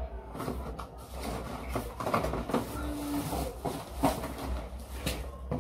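Ring-light accessories and their packaging being handled: irregular rustles and clicks, over a steady low hum.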